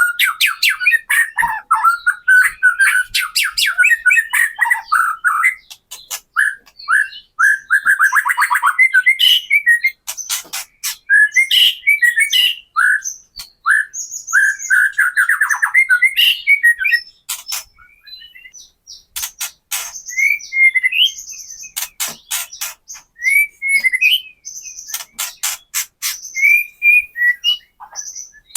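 White-rumped shama singing: a dense run of chattering notes, then from about halfway a series of sharp crackling clicks (the "kretekan" call) mixed with short whistled notes.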